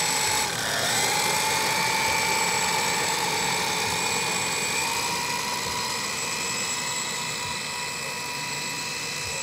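Engines of a large radio-controlled scale Junkers Ju 52 trimotor running with a steady whine. The pitch dips briefly about half a second in, rises a little around five seconds in, and the sound fades slightly toward the end.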